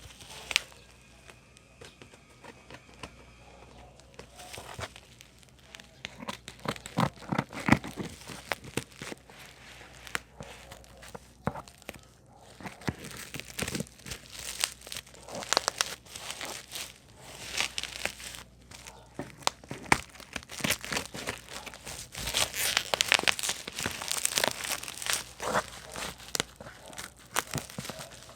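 Packaging being unwrapped by hand: irregular crinkling, rustling and tearing with scattered sharp clicks, busier in the second half.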